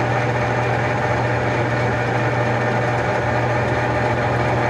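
Enco 405G (Chien Yeh CY405) metal lathe running steadily with the power feed engaged: a constant hum of motor and geared headstock.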